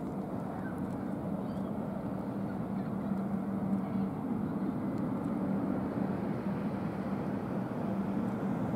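Steady low mechanical hum with a faint held drone and no rotor beat.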